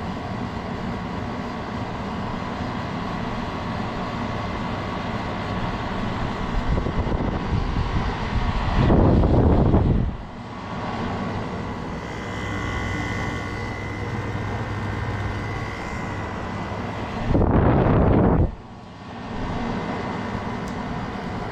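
2012 Frigidaire 5,000 BTU window air conditioner running with its Rechi rotary compressor and blower fan on: a steady hum with a few steady tones. Twice, about nine seconds in and again near eighteen seconds, a loud whoosh of noise drowns it out for a second or so.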